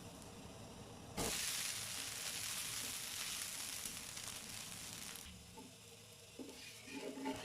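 Dosa frying in oil on a hot dosa pan, sizzling. The sizzle comes in suddenly about a second in and dies down after about four seconds, with a few light knocks near the end.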